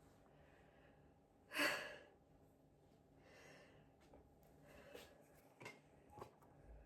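A person's short, forceful breath about a second and a half in, followed by softer breathing and a few faint clicks.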